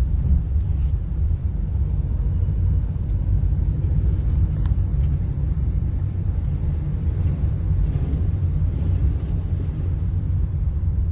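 Steady low rumble of a car moving along a road, with a few faint clicks.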